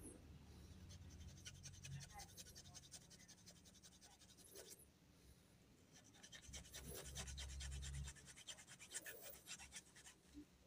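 Needle file rasping through the tang hole of a thin micarta spacer held in a vise, enlarging the hole to fit a knife tang. Quiet, rapid scratching in two spells with a short pause about halfway through.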